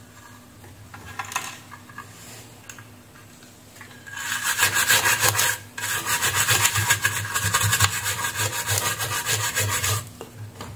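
Stiff-bristled brush scrubbing a printed circuit board around freshly desoldered pads, in rapid back-and-forth strokes. The scrubbing starts about four seconds in, pauses briefly, then runs on until near the end.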